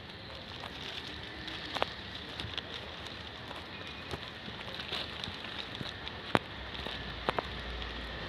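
Footsteps on gritty asphalt over steady street background noise, with a few sharp clicks. A low rumble comes in near the end.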